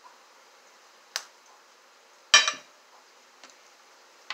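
A sharp click, then one loud knock about two seconds in as a bottle of hot sauce is set down on the table, with another cluster of knocks at the end.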